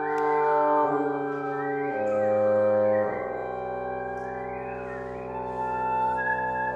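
Wind sextet of flute, oboe, French horn, saxophone, bassoon and clarinet playing contemporary chamber music: sustained chords that shift every second or so while a high line slides up and down in pitch above them. The first three seconds are louder, and it then drops to a softer held chord.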